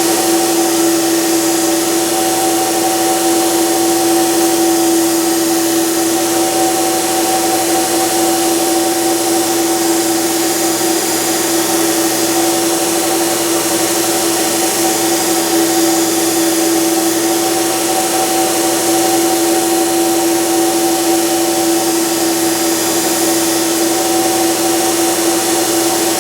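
Burr King belt grinder running a diamond abrasive belt, grinding a carbide stump grinder tooth: a steady, unbroken motor hum with a high hiss over it.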